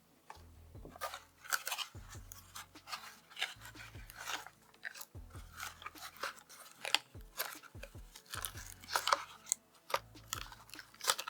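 The small cardboard and plastic retail box of an Intel Core i5-12600K processor being opened by hand: irregular crackling, crinkling and tearing of the packaging.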